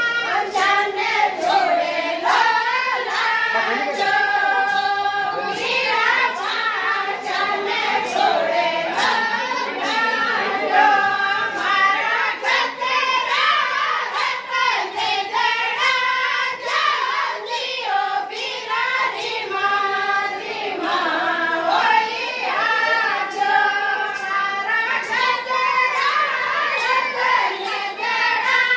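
A group of women singing a Rajasthani mayra folk song together, with sharp hand claps at a steady pace keeping the beat.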